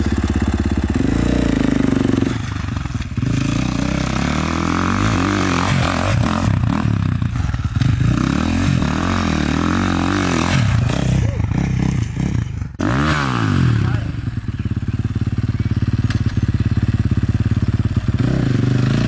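Motocross bike engine being ridden, its revs rising and falling repeatedly, with a sudden brief cut about two-thirds of the way through, then running more steadily near the end.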